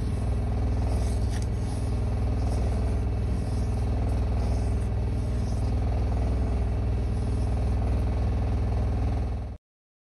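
Washing machine on its spin cycle: a steady low hum and rumble, with faint scratches of drawing implements on paper over it. The sound cuts off suddenly near the end.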